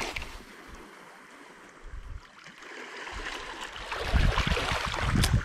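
Sea water washing and splashing, with wind gusting on the microphone. The rushing grows louder and the low buffeting returns strongly about four seconds in.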